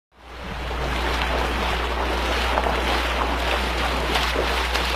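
Fast-flowing muddy floodwater rushing, a steady wash of water noise that fades in over the first half second, with a steady low rumble underneath.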